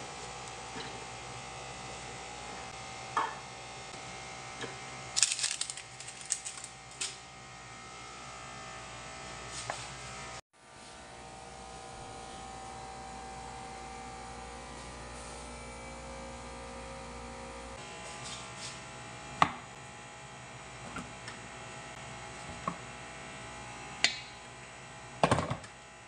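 Steady electrical hum with a few faint steady tones in it, broken by scattered light knocks and clinks of kitchen handling: food and utensils moved on a cutting board, plate and aluminium pot. The sound cuts out for a moment about ten seconds in.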